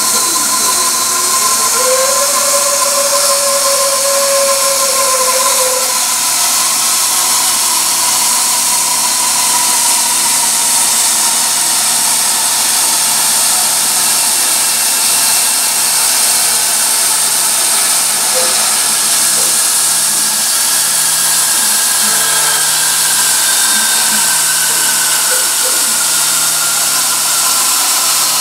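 Bandsaw running and slowly cutting through a glued-up segmented wood ring held in a chuck on a sliding jig, splitting the ring into two thinner rings. It is a steady, loud hiss of the blade in the wood, with a faint whine that drifts in pitch.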